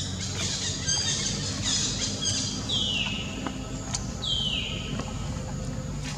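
High-pitched animal calls: a run of squeals, then two calls that each slide down in pitch, about a second and a half apart.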